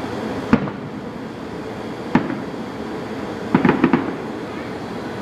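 Fireworks exploding: a single bang about half a second in, another at about two seconds, then a rapid cluster of four bangs, over a steady background of noise.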